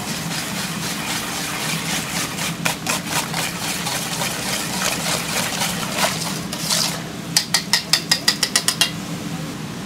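Wire whisk beating a runny egg mixture in a stainless steel bowl, a fast scraping, rattling churn of wires against metal and liquid. Near the end comes a quick run of about a dozen sharp metallic clacks, some seven a second, as the whisk strikes the bowl.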